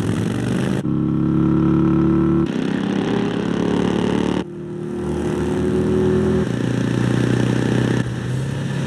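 Two motorcycles running at speed, a steady engine note whose pitch and loudness jump abruptly four or five times as the sound cuts between shots.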